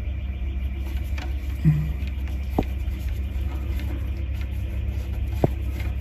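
Steady low hum with two faint sharp clicks, about a second apart near the middle and near the end, as a screwdriver works the terminal screws of an intruder alarm control panel to disconnect the Redcare telephone line.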